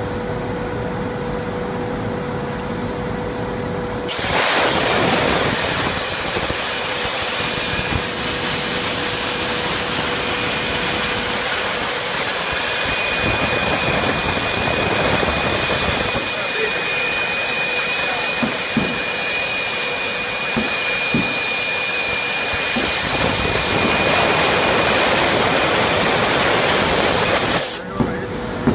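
Plasma torch on a CNC plasma cutting table: the arc fires about four seconds in with a loud, steady hiss and keeps cutting, a thin high whine joining it partway through, then cuts off abruptly just before the end. Before the arc fires, a steady machine hum with a constant tone.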